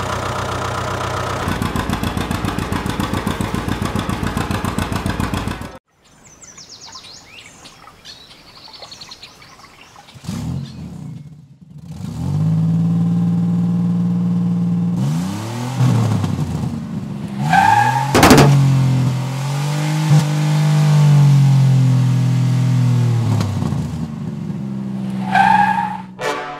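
Engine sound of a truck, revving up and down in pitch, with a couple of short higher squeals. Before it, a steady rhythmic sound cuts off about six seconds in, followed by a quieter stretch.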